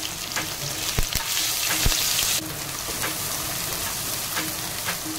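Onion, garlic paste and chilli paste sizzling in hot mustard oil in a pan, stirred, with occasional sharp knocks of the stirring utensil against the pan. About a second and a half in the sizzling grows louder and hissier for about a second, then drops back suddenly.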